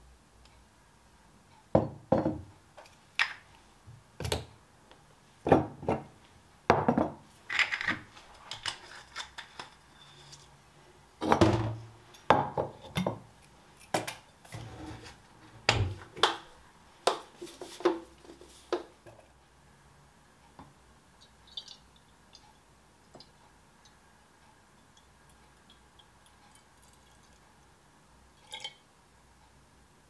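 Glass bottles clinking and knocking against each other and the countertop as they are handled and set down. A quick run of sharp knocks and clinks fills the first twenty seconds or so, followed by only a few faint ticks.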